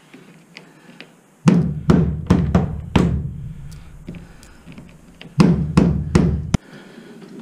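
Two runs of heavy knocks, five and then four, about two or three a second, on the running board of a 1928 Falcon Knight from beneath while its mounting bolts are being undone.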